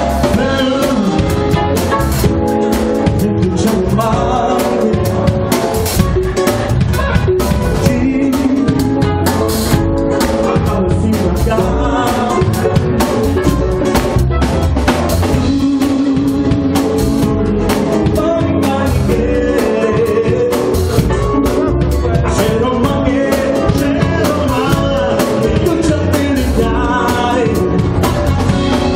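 Live band playing at a steady, loud level: electronic keyboard, drum kit and acoustic guitar, with a voice singing over them.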